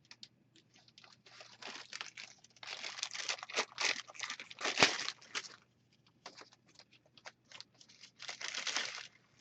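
Packaging being handled: rustling and crinkling in bursts, the loudest from about two and a half to five and a half seconds in, with a sharp click about five seconds in and another burst near the end.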